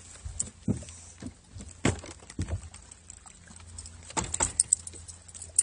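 Handling noise as a just-caught bass is unhooked from a lure: scattered clicks, knocks and rattles, the sharpest a little before two seconds and again around four seconds in, over a low steady rumble.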